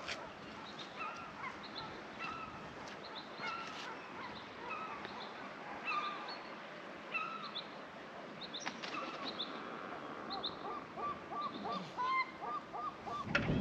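Birds calling: many short calls scattered through, with a quick run of repeated calls near the end.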